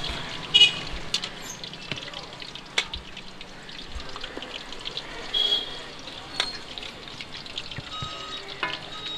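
Chicken pakora frying in hot oil, crackling and sizzling steadily. Two brief, sharp high-pitched sounds cut through it, the loudest about half a second in and another about five and a half seconds in.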